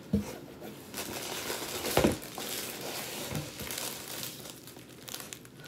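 Clear plastic packaging crinkling and a cardboard shipping box rustling as items are rummaged out by hand, with a sharper knock about two seconds in.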